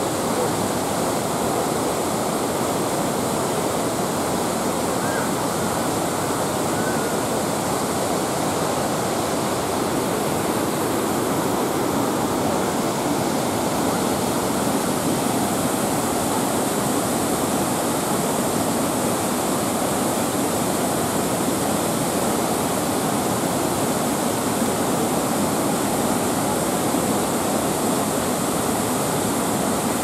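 Rushing water of the Düden River's rapids and the Upper Düden Waterfall: a steady, unbroken roar of water.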